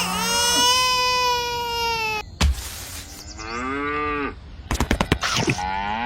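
Cattle mooing: one long, drawn-out moo of about two seconds, then a short hiss, then a shorter moo that wavers in pitch, with a quick run of clicks just before a final call near the end.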